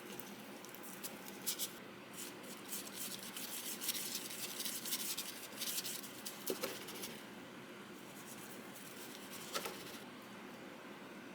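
Quiet scratching and rustling with many small clicks for a few seconds, then two brief knocks, the second a little before the end.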